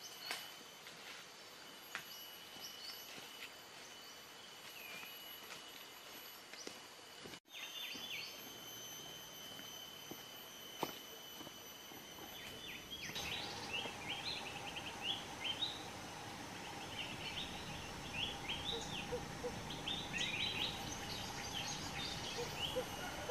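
Forest ambience: insects droning in steady high tones and birds chirping. About halfway through, the birdsong turns into many quick, repeated chirps.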